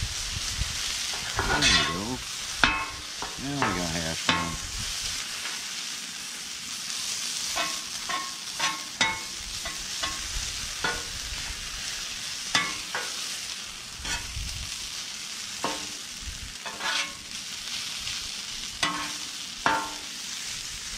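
Food sizzling on a hot Blackstone flat-top griddle, with a metal spatula scraping and tapping against the steel plate many times as it turns and spreads the food.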